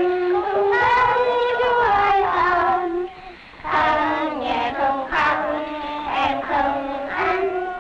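Young children singing a song together in held, sung phrases, with a short pause between phrases about three seconds in.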